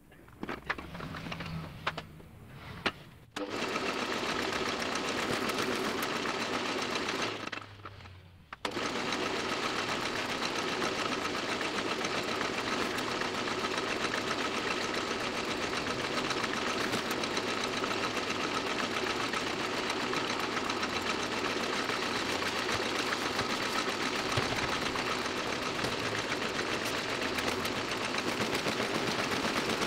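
Toko 810 small offset printing press running at speed, a fast, dense, steady mechanical clatter of its cylinders and sheet feed. It comes in about three seconds in, dips briefly near eight seconds, then runs on evenly.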